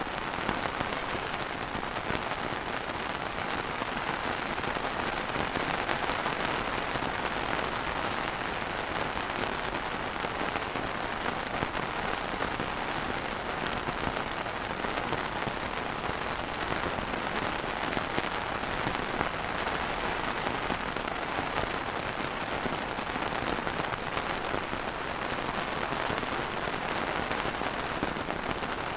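Steady rain falling on a surface, an even hiss of many drops that neither builds nor eases.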